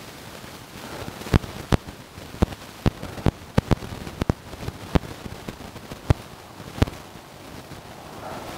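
About a dozen sharp clicks or pops, irregularly spaced over some five seconds, over a faint steady hiss.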